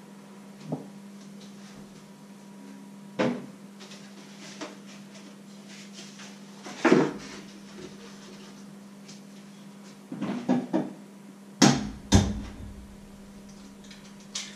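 Cookware being handled at a kitchen stove: several separate knocks and clatters as pots, pans and utensils are picked up and set down, the loudest two close together near the end, over a steady low hum.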